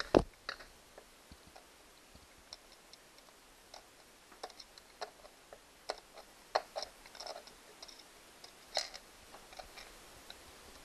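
Screwdriver tapping and clicking against the metal of an outboard motor while fishing for a dropped small screw: a sharp knock at the very start, then scattered, irregular clicks.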